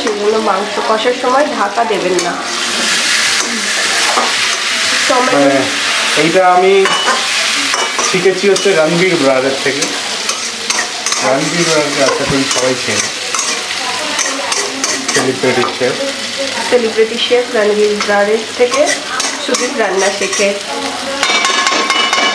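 A metal spatula stirring and scraping marinated chicken pieces around a metal kadai, with repeated scrapes and knocks against the pan over the steady sizzle of the meat frying in oil. The chicken is being browned uncovered (kosha) for kosha mangsho.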